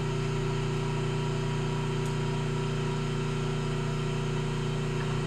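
Hardinge HC chucker turret lathe running, a steady even hum with no cutting.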